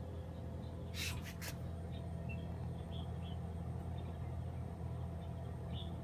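Steady low hum of a running inverter air conditioner's outdoor unit, a sound that is a bit like a boat. About a second in, a quick rustle in three short strokes.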